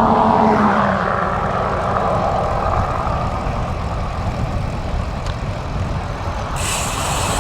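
A tractor towing a baler passes, its engine loud in the first second and fading quickly, leaving wind rushing over the microphone. Near the end a bicycle freehub starts ticking as the rider coasts.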